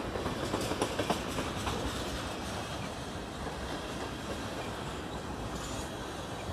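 Empty ethanol tank cars of a freight train rolling past, a steady rumble of wheels on rail. A quick run of wheel clacks over rail joints comes in the first two seconds, and a few more near the end.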